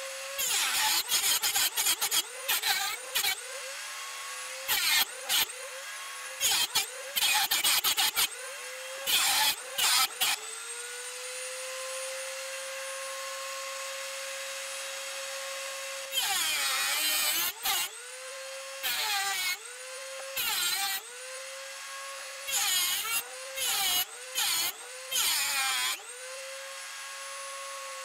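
Dremel rotary tool spinning a metal cutoff wheel with a steady high whine. Again and again it grinds into a small metal T-nut blank in short harsh bursts, and the motor's pitch sags under the load each time, then recovers. Dense cutting for the first several seconds, a stretch of free-running whine in the middle, then more cuts.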